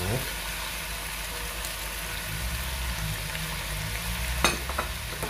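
Shredded cabbage and meat frying in fat in a wide pan, a steady sizzle. A single sharp click of the utensil on the pan near the end.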